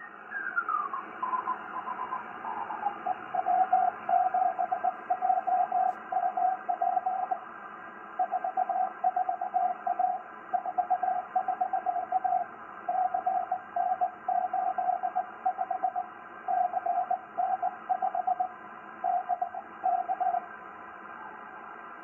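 6-metre amateur radio receiver playing a Morse code (CW) signal received by auroral backscatter, over steady receiver hiss. At first the tone glides down in pitch as the dial is tuned down the band. From about two seconds in the code is keyed in groups of on-off tones, with short pauses between groups, until near the end.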